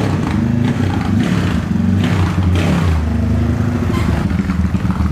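Honda Today motorcycle with a 371 cc single-cylinder engine running on ethanol, ridden slowly at low revs. The low, loud exhaust note holds steady, with a brief dip and recovery in the revs about halfway through.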